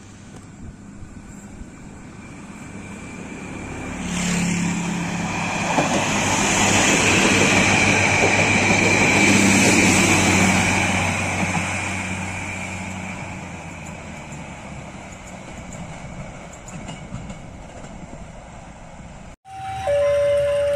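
A diesel railcar set (the KAIS 3 inspection railbus) passes straight through without stopping: engine hum and wheels on rail swell from about four seconds in, peak around ten seconds and fade away. Near the end, after a cut, a two-note electronic chime starts.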